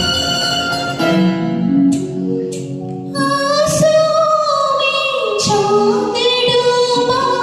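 Woman singing a Hindi film song over an instrumental backing; the voice enters about three seconds in and holds long, wavering notes.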